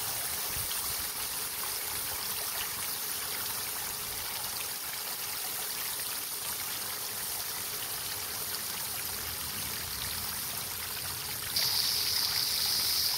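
Garden-hose spray nozzle showering water onto a red-hot 1045 steel hammer head and splashing into a bucket, a steady rushing hiss: the spray quench that hardens the head. A louder, higher hiss joins suddenly near the end.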